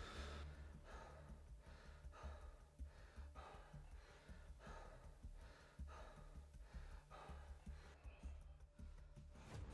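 Near silence with a man's faint sighing breaths.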